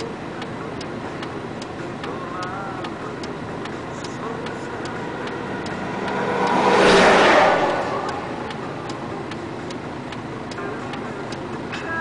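Even ticking about twice a second, typical of a turn-signal indicator, heard inside a stopped vehicle's cabin over a low engine rumble. A vehicle passes in the next lane, swelling up to a peak about seven seconds in and fading away.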